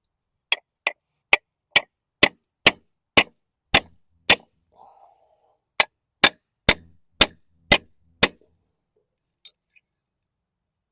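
A 16-ounce hammer striking a caved-in metal plate on a lawn mower, beating down a high spot: nine sharp ringing blows about two a second, a short pause, then six more.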